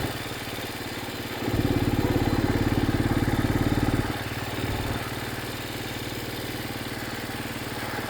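A vehicle's engine running as it is driven slowly, heard from inside the vehicle: a low, steady rumble that grows louder for a couple of seconds from about a second and a half in, then settles back.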